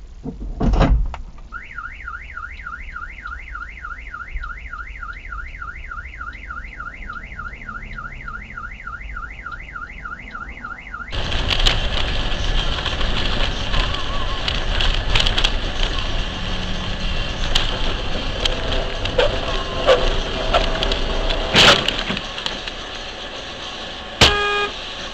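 A loud knock, then a car alarm warbling fast up and down, about four sweeps a second. The alarm stops abruptly about eleven seconds in and gives way to louder, steady dashcam road noise with scattered clicks and a sharp bang near the end.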